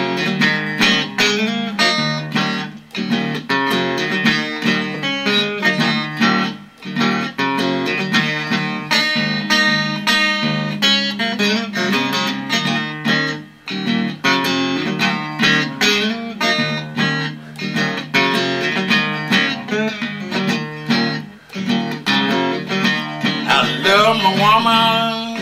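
Electric guitar played solo in a repetitive blues riff, with heavy low notes repeated under picked notes higher up, and a few brief breaks in the playing.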